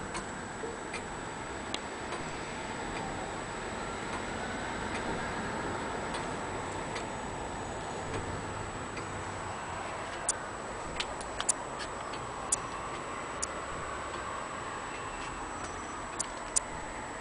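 18th-century longcase (grandfather) clock ticking: sharp ticks from its pendulum escapement roughly once a second, some much louder than others, over a steady hiss.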